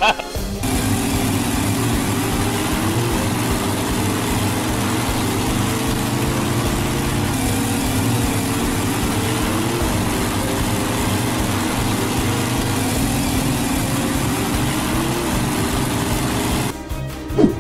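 Motor vehicle engine sound effect running steadily, starting about half a second in and cutting off near the end.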